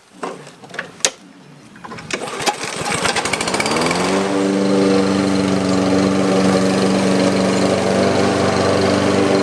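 Newly assembled lawn mower's small gasoline engine on its first run: after a few clicks, the engine speeds up about three seconds in, rising in pitch, and settles into a steady run.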